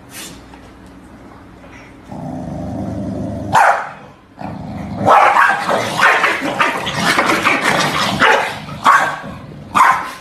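Corgi barking: a single sharp bark, then a run of rapid, excited barking, and two more sharp barks near the end.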